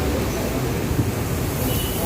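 Steady low rumble of buses and road traffic, with a faint knock about a second in.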